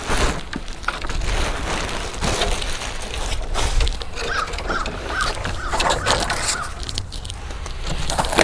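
Plastic packaging wrap rustling and crinkling as it is handled and carried off. A bird calls a run of short notes about halfway through.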